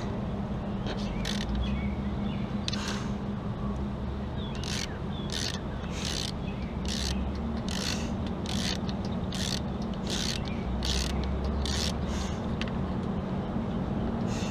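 Ratchet wrench clicking on its back-strokes, turning a bolt on a Chevy 3.1L V6's intake: short bursts of pawl clicks about every half second, most regular through the middle stretch. A steady low hum runs underneath.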